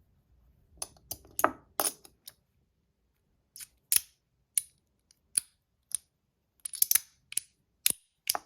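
Metal pieces of a Mackie CP3 magnetic fidget snapping together under its magnets: a string of sharp, hard clicks, irregularly spaced at about one to two a second, with a quick cluster of them near the end.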